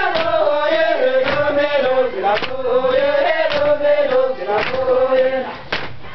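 A group of women singing a Tibetan work chant in unison, a held and wavering melodic line. A sharp knock about once a second keeps time, fitting their tamping poles striking the floor.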